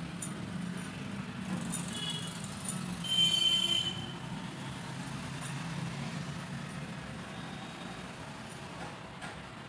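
Steady low background hum, with a few faint clicks and one short high-pitched tone about three seconds in, the loudest sound.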